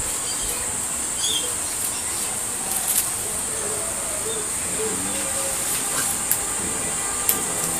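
Steady high-pitched hiss with faint background voices and a few short, sharp clicks.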